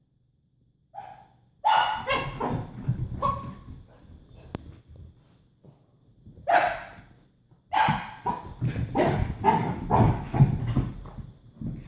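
Excited puppy barking in bouts: a single bark about a second in, a quick run of barks from about two to three and a half seconds, one near six and a half seconds, and a longer run of barks from about eight to eleven seconds.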